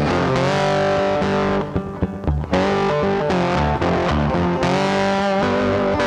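Background music led by a distorted electric guitar, with a short quieter break about two seconds in.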